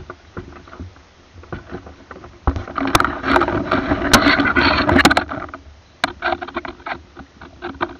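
Water splashing and sloshing close to the camera, with scattered knocks and bumps from the camera being handled. The splashing grows louder and denser from about two and a half to five and a half seconds in.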